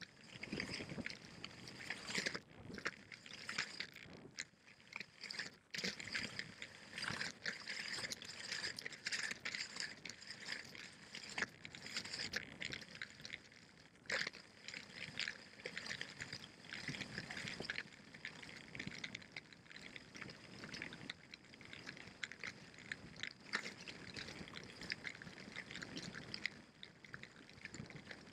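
Salomon skis running fast over packed snow on a downhill run: a continuous hissing scrape, uneven in loudness, with many short knocks and chattering clicks from the skis on the snow.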